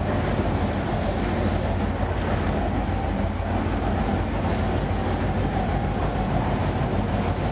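Steady low mechanical drone with an even hum, unchanging throughout.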